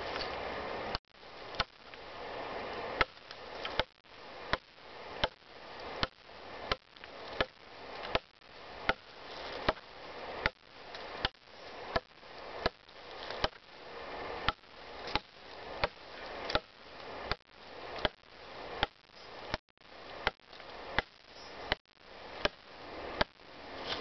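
Machete chopping a damp birch log: blade striking wood in a steady rhythm, a little more than one stroke a second.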